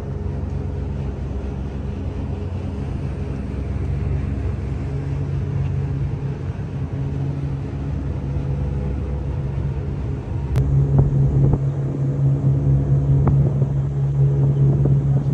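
Steady low drone of a fireboat's engines running. A sharp click comes about ten and a half seconds in, and after it the drone is louder.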